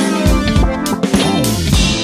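Background music with a drum kit beat, bass and guitar.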